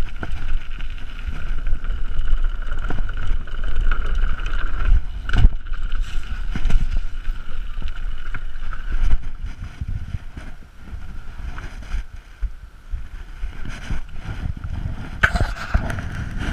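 Mountain bike riding down a dirt forest trail: wind on the microphone and tyres rumbling over dirt and roots, with scattered knocks, under a steady high buzz that fades out about ten seconds in.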